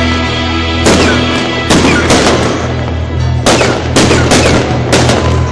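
Aerial firework shells bursting in a rapid run of sharp bangs, about ten of them starting about a second in, over loud music with a steady low bass.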